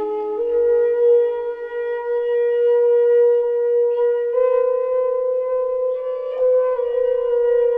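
Slow meditative instrumental music in a wind-instrument-like tone, holding long notes that step to a slightly higher pitch about half a second in and again around four seconds in, then dip a little near the end.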